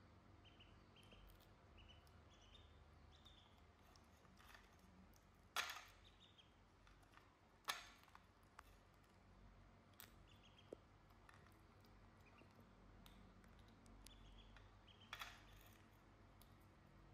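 Faint, short high peeps from two domestic ducklings now and then, with a few sharp clicks. The loudest clicks come about five and a half and seven and a half seconds in.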